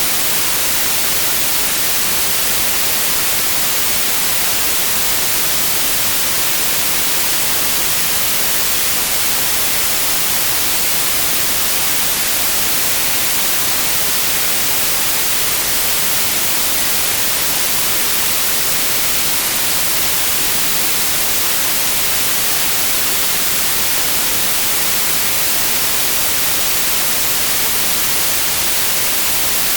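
Synthetic white noise: a steady, even hiss with no changes, strongest in the highs.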